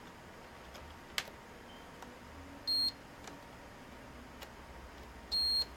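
Multimeter in continuity mode beeping twice: a short high beep a little under 3 seconds in and a longer one near the end. A light click from the test probes comes about a second in.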